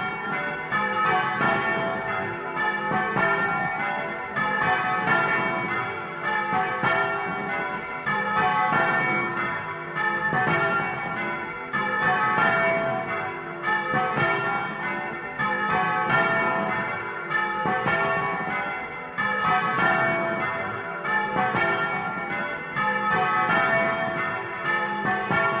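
Several bronze church bells swung by hand on ropes, their strikes following one another fast in a continuous, repeating peal, heard close up inside the bell chamber. This is the Easter ringing that announces the Resurrection.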